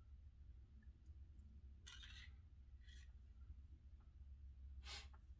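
Near silence over a low hum, with a few faint scraping sounds about two, three and five seconds in: a metal Allen key working a rubber o-ring back into the heat-core channel of a First Strike FSC marker.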